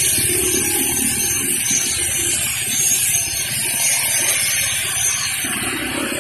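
Traffic driving through standing rainwater on a flooded road: a steady rushing hiss of water, with a low rumble of vehicle engines underneath.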